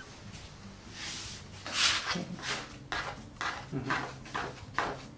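Hands kneading soft bread dough on a floured worktop: a run of short rubbing and slapping strokes, the loudest about two seconds in, with a plastic dough scraper scraping across the surface later on. Soft background music plays underneath.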